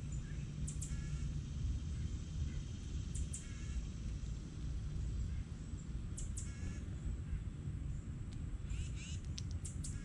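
Outdoor birdsong: a crow caws three times, about three seconds apart, while small birds give short high chirps, several in quick succession near the end, over a steady low rumble.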